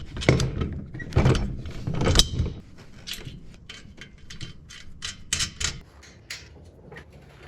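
Metal parts and hardware knocking and clicking as a metal planer stand is assembled: a few heavy knocks in the first two seconds or so, then a run of light, irregular clicks.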